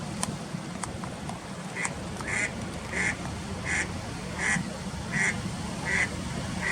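Eastern spot-billed duck giving a series of short, evenly spaced quacks, about one and a half a second, starting about two seconds in, over a steady low background rumble.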